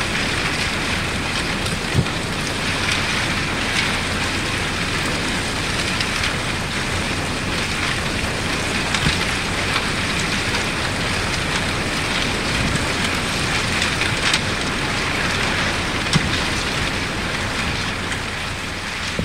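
Broken shards of thin lake ice jostled by waves against a shore pile of ice: a steady dense clinking with a few louder sharp clicks scattered through.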